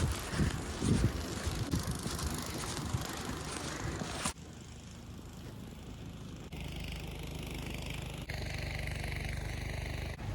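Wind and road noise that cuts off suddenly about four seconds in, giving way to the steady low hum of an idling vehicle engine, which changes abruptly twice more.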